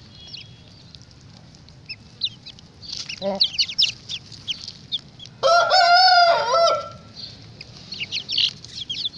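Flock of chickens: young birds peeping in quick high chirps and a short cluck, then a rooster crowing once, about a second and a half long, a little past the middle. The crow is the loudest sound.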